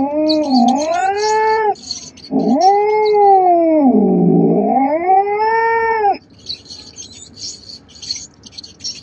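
Domestic cat caterwauling: two long, drawn-out yowls that rise and fall in pitch, the second lasting about four seconds and stopping about six seconds in. A faint, high, rapid clicking runs underneath and is left on its own after the yowls end.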